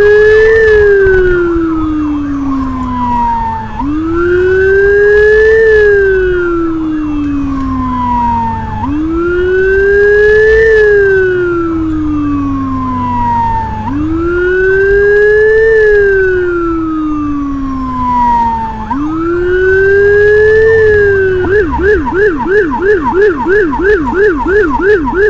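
Whelen electronic siren on an escort motorcycle sounding a wail: five slow cycles, each rising quickly and falling over about four seconds. Near the end it switches to a rapid yelp of about three sweeps a second.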